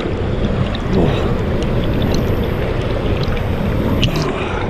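Steady rush of water pouring over a small weir waterfall into a river pool, heard from water level.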